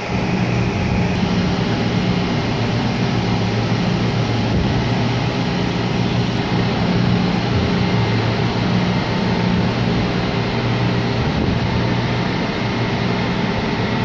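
Steady drone of a container ship's machinery: a low hum made of several held tones, over an even rushing noise that stays constant throughout.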